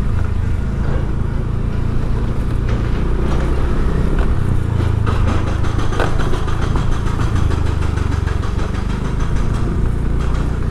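Motor vehicle engines running steadily with street traffic noise, a continuous low engine rumble throughout.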